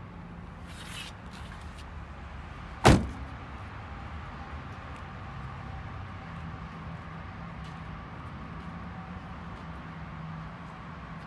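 The door of a Lamborghini Huracan Super Trofeo race car slams shut once, a single sharp bang about three seconds in, over a low steady hum.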